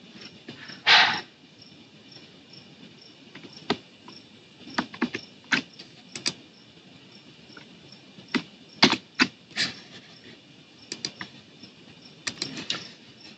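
Scattered, irregular clicks of a computer mouse and keyboard, with a louder, longer burst about a second in.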